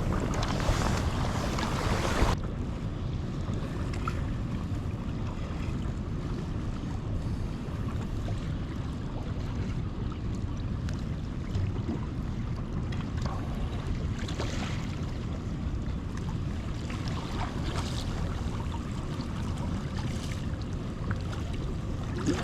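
Wind buffeting the microphone and water splashing around a sea kayak in choppy waves. A loud hiss cuts off suddenly about two seconds in, leaving a steady low wind rumble with scattered splashes.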